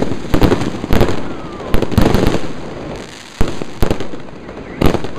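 Aerial fireworks bursting: an irregular string of sharp, loud bangs, sometimes two within half a second, with crackling between them.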